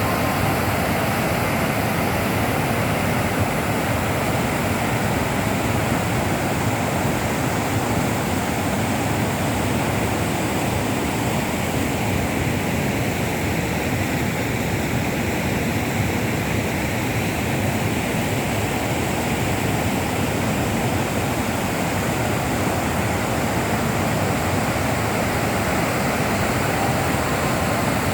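Steady rush of water pouring over Fukiware Falls, an even, unbroken roar with no pauses or changes.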